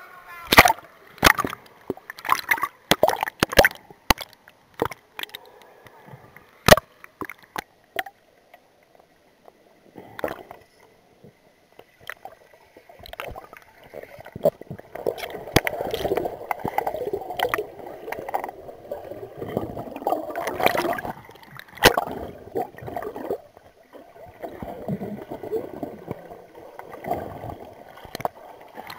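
Underwater pool sound: a run of sharp clicks and knocks over the first eight seconds or so, then, from about halfway, water rushing and gurgling over the camera as it moves through the water.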